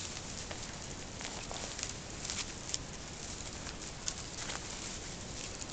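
Faint irregular crackles and scrapes over a steady hiss, from a person climbing hand over hand up a hanging woody vine: the vine, bark and clothing rubbing and creaking.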